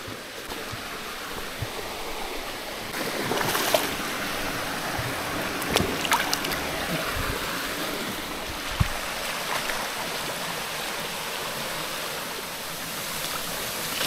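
Steady rush of a stream or waterfall, with a few scattered clicks and knocks over it.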